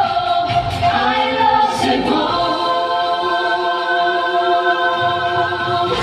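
A group of singers performing live through a PA: a sung line over the backing music, then the bass falls away about two and a half seconds in and the voices hold one long final chord in harmony.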